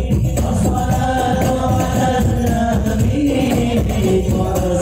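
Sholawat, Arabic devotional singing in praise of the Prophet, with hand-drum and jingle percussion, played loud through a PA speaker system during a sound check.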